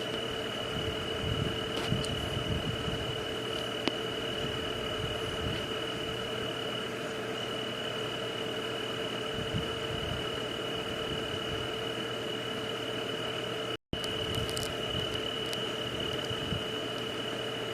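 Steady night ambience white noise: an even hiss with a constant high-pitched drone and a lower steady hum, and a few faint clicks. The sound cuts out for an instant about 14 seconds in.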